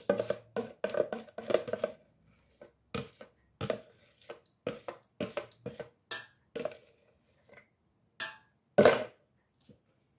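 A metal spoon knocking and scraping inside a plastic bucket to work the last of the cooking oil out: a quick run of short knocks at first, then scattered ones, with one louder knock near the end.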